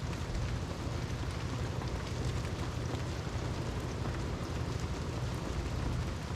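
Steady rain falling, with scattered drop ticks and a constant low rumble underneath.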